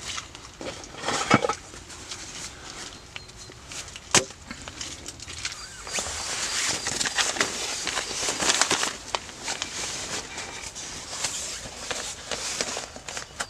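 Rustling and crinkling of a nylon inflatable sleeping pad being unfolded and spread out by hand, with many small crackles. Before that come two sharp knocks, about a second and about four seconds in.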